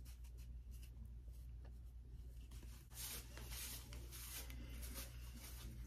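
Faint rustling and rubbing of hair and cloth close to the microphone as an elastic headband is pulled on and adjusted, busier and louder from about three seconds in, over a low steady hum.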